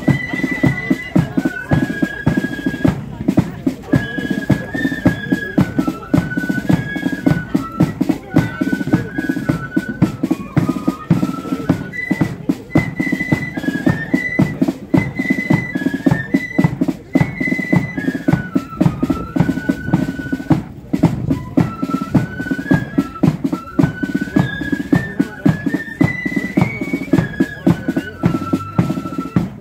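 Marching flute band playing a tune in unison, the flutes carrying one stepwise melody over steadily beating drums.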